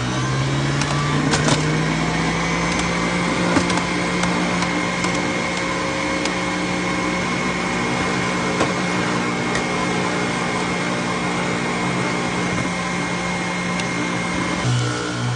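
Hamilton Beach electric juicer running steadily while juicing red beets: a motor hum with a thin, steady high whine above it. The hum steps up in pitch right at the start and drops back down near the end.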